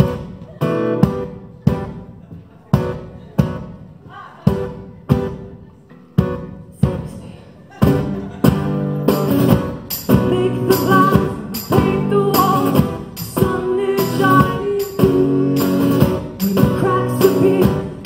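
Two acoustic guitars played live. Single hard strums, each left to ring, come about once a second for the first eight seconds or so. Then steady, driving strumming starts, and singing joins a couple of seconds later.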